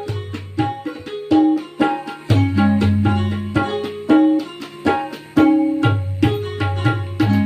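Instrumental music with no singing: a plucked-string melody of repeated notes over a tabla rhythm and a bass line.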